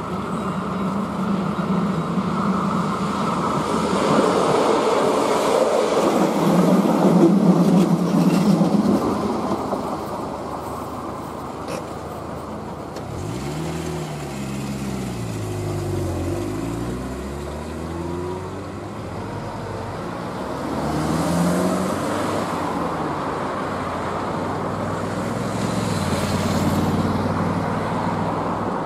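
A diesel railcar running steadily, loudest in the first several seconds before fading away. From about thirteen seconds in, cars start off and drive past one after another, engines revving up and tyres hissing on the road.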